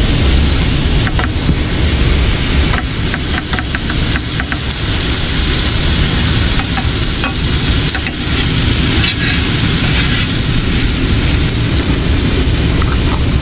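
Rib-eye steaks sizzling in garlic butter in a frying pan, with a knife clicking and scraping against the pan now and then. A heavy low rumble of wind on the microphone runs underneath.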